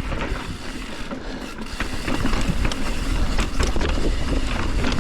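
Mountain bike descending a rocky trail: tyres rolling over dirt and rock with scattered knocks and rattles from the bike, over a low wind rumble on the microphone.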